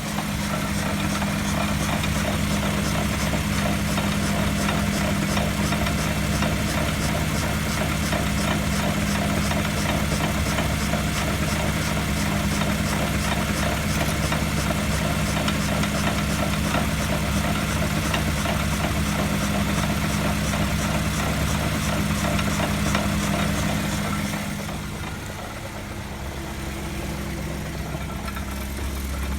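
Worn wheel hub bearing heard through an electronic mechanic's stethoscope as the wheel turns: a steady low hum with a fast, even rhythmic rumble over it. About 25 seconds in it drops off briefly, then carries on with a changed tone.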